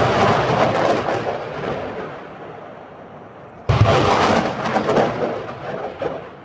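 Multiple launch rocket system firing rockets. The noise of one launch fades away over the first few seconds, then a second rocket leaves with a sudden loud blast a little past halfway, its rushing noise fading near the end.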